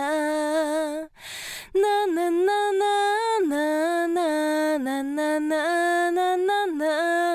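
Unaccompanied female singing voice, dry and compressed by an API T25 tube compressor, holding and stepping between sustained notes, with a short pause about a second in.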